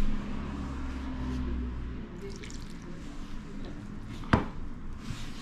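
Flour and water being squeezed and worked into pizza dough by hand in a plastic bowl, a soft wet squishing and rubbing. One sharp knock about four seconds in.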